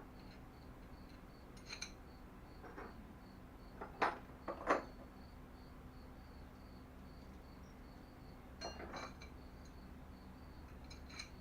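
Small metal clinks and knocks of bolts and flat washers being handled and fitted, a few at a time, the loudest two about four seconds in. Under them a cricket chirps in an even, high-pitched pulse about three times a second.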